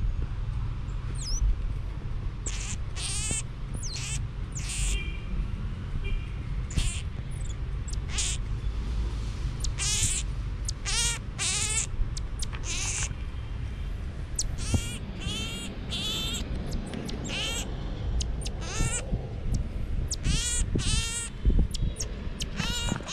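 A pygmy marmoset giving a long series of short, high-pitched, warbling trill calls, close to the microphone. Under the calls is a low rumble of fur and hands brushing against the microphone.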